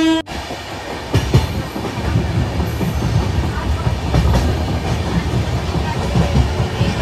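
Moving train: a steady rumble with clacks of the wheels over the rail joints, the loudest about a second in and near the end. A train horn cuts off abruptly at the very start.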